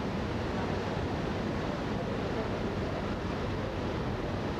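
Steady rushing noise of wind and water aboard a passenger ferry under way, with a low rumble underneath.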